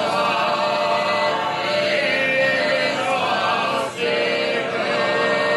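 Group of voices chanting a Japanese Zen sutra together in a steady, drawn-out monotone. There is a brief breath break a little before four seconds in.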